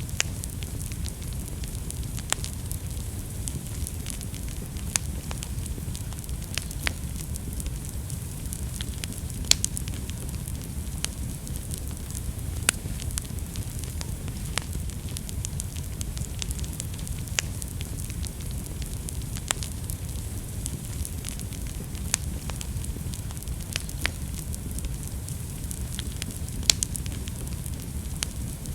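Fire burning in a fireplace: a steady low rumble and hiss with irregular sharp crackles and pops, a few louder snaps among them.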